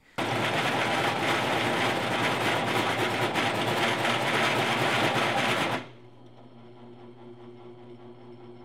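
Drill press boring a 1-3/8 inch hole through a steel robot-track bracket with a large drill bit: a loud, harsh grind as the bit catches and chatters in the cut. Just before 6 s the cutting stops as the bit is lifted out, leaving the drill press motor and spindle running with a steady low hum.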